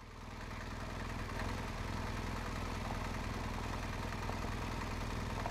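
Boxer-twin adventure motorcycle engine running at low speed in first gear, held on a steady, light throttle with the clutch slipped in its friction zone. It grows a little louder over the first second or so, then holds steady.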